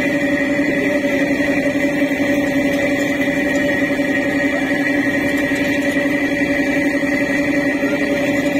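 Steady drone of a river boat's engine running at constant speed, heard from on board, with a few steady tones over a wash of noise.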